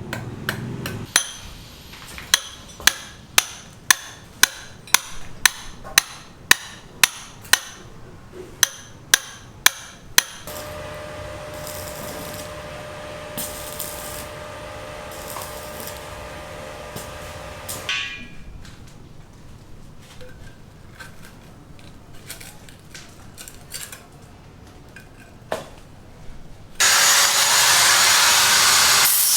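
A hammer striking repeatedly, about two blows a second, for the first ten seconds. A steady machine hum follows. Near the end a loud, even noise starts.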